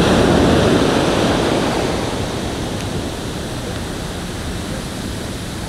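Ocean surf breaking and washing up the sand, a steady rush that is loudest at the start and eases off over the first few seconds as the wash spreads out.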